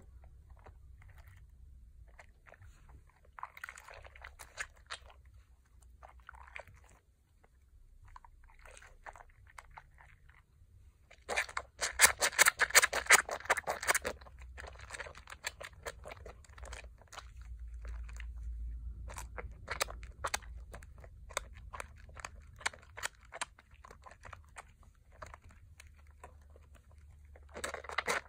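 Soaked, softened Pears soap bars squeezed and lathered by hand into thick foam over a bowl of soapy water: wet squishing with dense crackling of the foam, coming in irregular bursts. The loudest run of crackling comes about 11 seconds in and lasts some three seconds, and the crackling goes on more steadily from about 15 seconds in.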